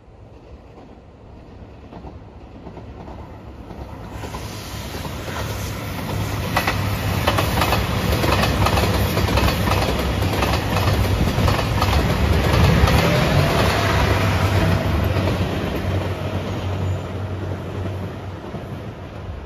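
JR Shikoku 2700 series diesel express train passing close by. Its diesel engines hum as it approaches, grows loud and then fades away, and its wheels click over the rail joints as it goes past.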